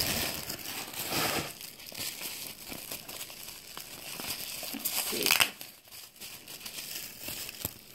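Tissue paper and plastic bubble wrap crinkling and rustling as a small package is unwrapped by hand. The crackle comes in uneven bursts, loudest at the start and again about five seconds in.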